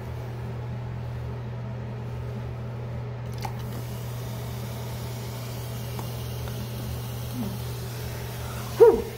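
Baking soda and vinegar fizzing: a faint steady hiss over a constant low hum, the hiss growing brighter from about three seconds in. A brief loud vocal cry near the end.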